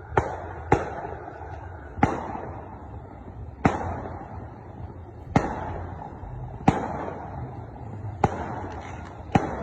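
Vietnamese Z121 firework cake going off: about eight sharp bangs, roughly one every second or so at uneven spacing, each trailing off in a hiss.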